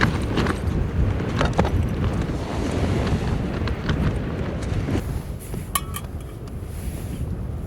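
Strong gusting wind rumbling on the microphone, with scattered sharp clicks and snaps. About five seconds in it eases a little, and a brief sharp clink sounds soon after.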